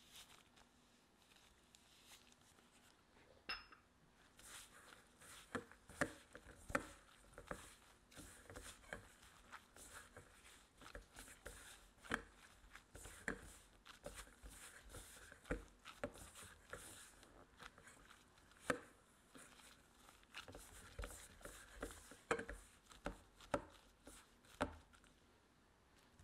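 Gloved hand pressing and squeezing crumbly butter cookie dough into a ball in a stainless steel bowl. It gives soft squishing with irregular taps and knocks of hand and dough against the bowl, starting a few seconds in.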